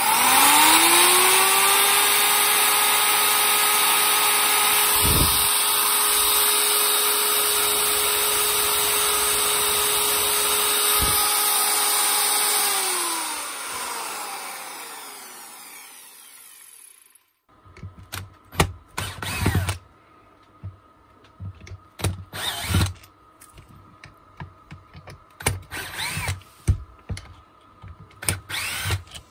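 Zubr ZUBR-USHM-230-2100 PM3 angle grinder switched on: it spins up with a rising whine, runs steadily for about twelve seconds, then is switched off and winds down with a falling whine over a few seconds. After that come scattered clicks and knocks.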